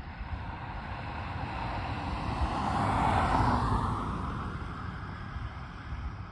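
A car passing by on the road: tyre and engine noise swelling to a peak about three seconds in, then fading away.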